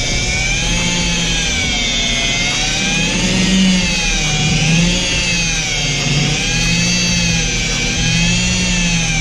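Electric machine polisher running with a foam pad against car paint during a final polishing pass, a steady motor whine whose pitch rises and falls about once a second as the load on the pad changes.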